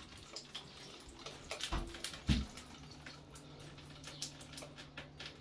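Water dripping and trickling irregularly from a leaking, defective bathtub waste-and-overflow drain through an opened ceiling, with two dull thumps about two seconds in.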